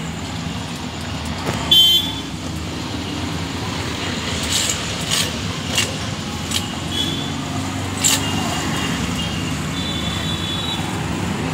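Motorcycle and street-traffic engines running, with short horn toots and a handful of sharp pops between about two and eight seconds in.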